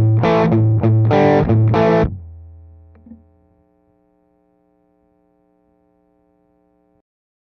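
Distorted electric guitar played through a Digitech CabDry cabinet-simulator pedal: a few loud chords that stop about two seconds in and ring out. A faint steady hum follows and cuts off suddenly near the end.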